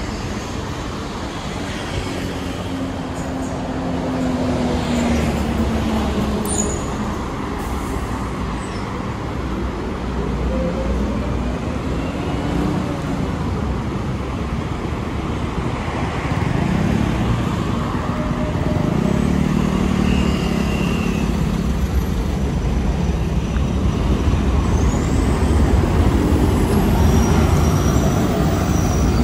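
Busy road traffic: a steady rumble of vehicle engines and tyres, with an engine swelling louder as it passes about halfway through and the traffic growing a little louder toward the end.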